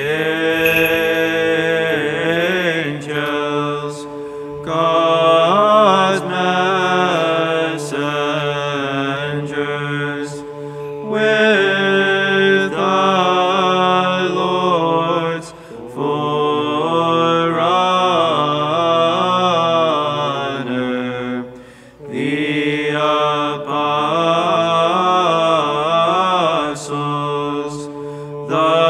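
Byzantine chant: a slow, ornamented melodic line sung by chanters over a steady held drone note (the ison), in phrases with short breaths between them.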